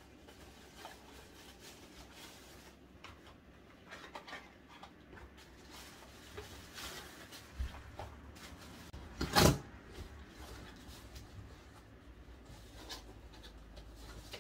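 Household handling sounds: small scattered knocks and clicks, with one louder thump about nine seconds in.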